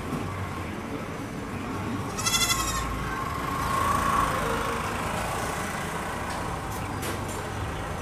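Steady outdoor background hum, with one short, wavering high-pitched bleat about two seconds in.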